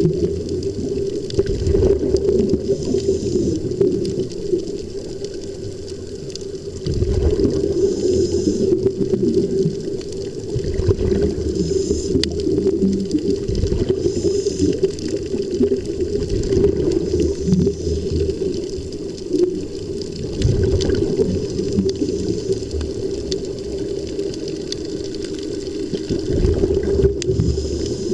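Steady muffled underwater bubbling and rushing of air, with irregular low rumbles, from the air supply of helmet divers.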